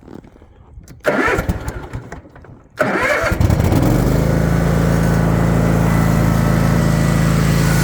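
Kawasaki 24-horsepower V-twin engine of a Gravely ZT 60HD zero-turn mower being started: the electric starter cranks for about a second and a half, the engine catches a little under three seconds in, and it settles into a steady, smooth run.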